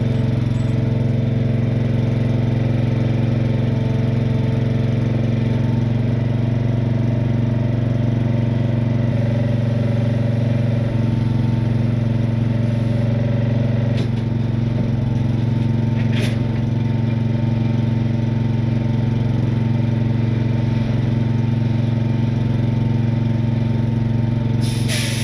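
Truck engine idling steadily, with a couple of faint clicks about midway and a short hiss near the end.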